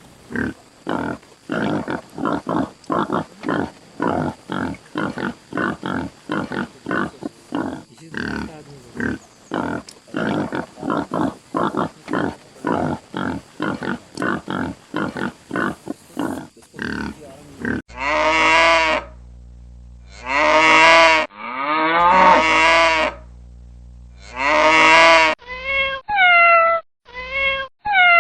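A series of animal calls: first a long run of short calls, about two a second, then four long drawn-out calls with a low hum beneath them. Near the end a cat starts meowing, several short meows that fall in pitch.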